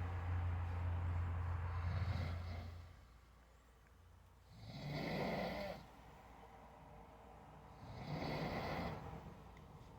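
A sleeping man snoring, one rough snore about every three seconds, three in all. A steady low hum underneath cuts off suddenly about three seconds in.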